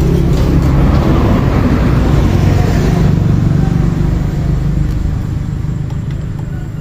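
An engine running close by, a loud low rumble that slowly fades over the last few seconds.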